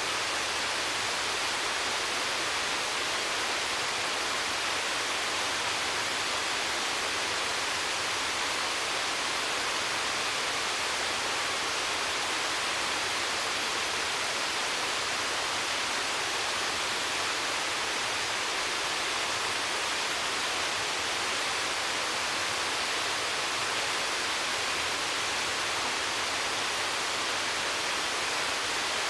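Amadaki waterfall's water falling and splashing in a steady, unbroken hiss.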